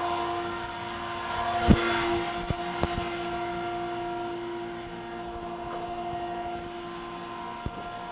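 Kellenberger universal cylindrical grinder standing idle with its grinding wheels switched off: a steady machine hum holding several fixed pitches. A sharp metallic knock comes about two seconds in, followed by a couple of lighter taps and one more tap near the end.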